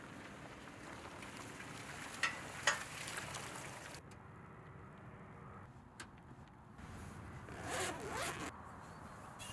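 A zipper on a soft gear bag pulled open in one rasping stroke near the end, over a quiet steady hiss. Two sharp clicks come a little after two seconds, and a single click about six seconds in.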